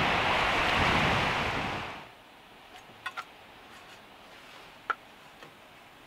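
Strong wind buffeting the microphone, fading out about two seconds in. Then a quiet van interior with a few light clicks of kitchen tongs against a plate.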